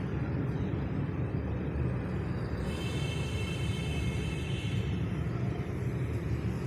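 Car engine running with a steady low rumble, joined by a high-pitched whine for about two seconds in the middle.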